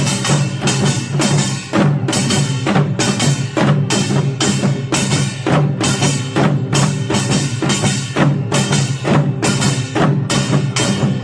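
Korean pungmul percussion ensemble playing a loud, driving rhythm, with strong beats about twice a second over a steady ringing tone.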